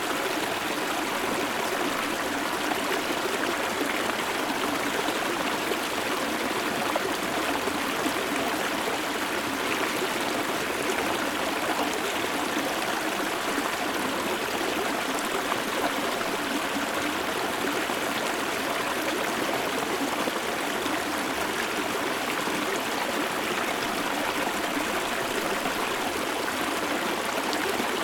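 Shallow river stream flowing and burbling over rocks, close up, a steady rush with small splashes and trickles throughout.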